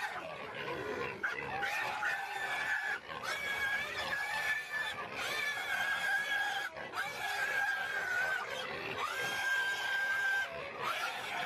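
Warthog squealing in distress while held in a crocodile's jaws: a string of long, high squeals, each about a second long, one after another with short gaps.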